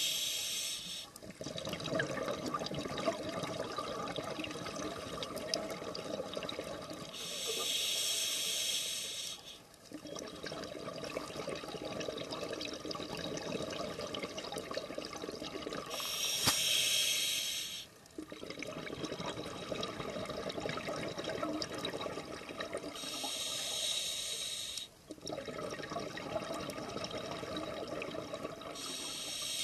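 Scuba diver breathing through a regulator underwater: a hissing inhale of about two seconds comes every seven to eight seconds, each followed by a longer bubbling exhale. About four full breath cycles.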